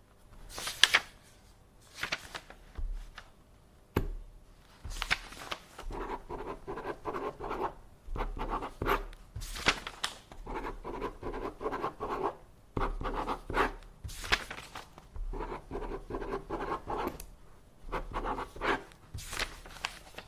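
Paper being handled at a desk: sheets rustling and sliding in repeated brisk swishes, with scratchy stretches of a second or two between them. There is a single sharp click about four seconds in.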